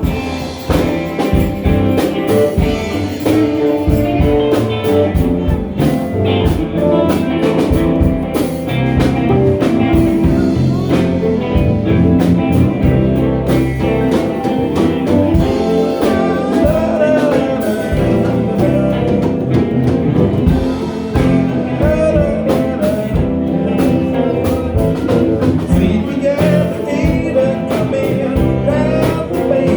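A band playing a blues-flavoured song, with guitar and a voice singing.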